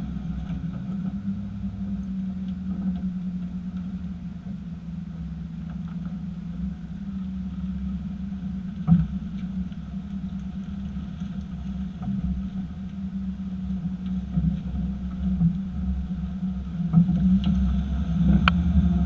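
2018 Chevy Silverado pickup running with a steady low engine hum, broken by a sharp clunk from the rear end about nine seconds in and two more near the end.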